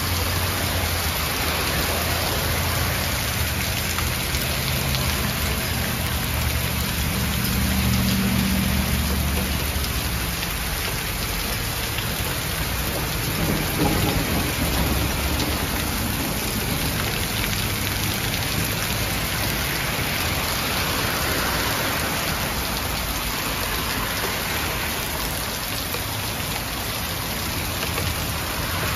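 Heavy hail falling: a steady, dense hiss of hailstones striking the ground and surfaces, with a low rumble swelling around eight seconds in.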